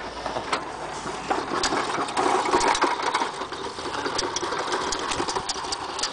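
Small riding lawn mower being pushed along concrete with its drive belt thrown: a steady, busy rattling clatter from the wheels rolling and the loose belt dragging on the drivetrain, building up about a second in as it starts moving.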